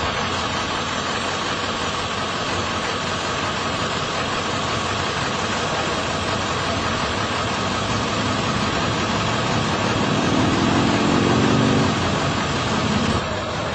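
Motor vehicle engine idling steadily. About eight seconds in an engine note rises and grows louder, then drops away suddenly near the end.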